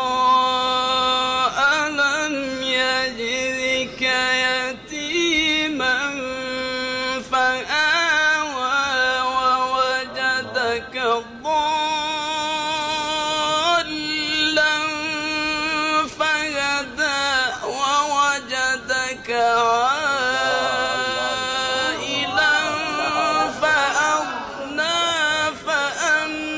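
A man reciting Surah Ad-Duha from the Quran in melodic tajweed style, one voice singing phrase by phrase with long held notes and short pauses between verses.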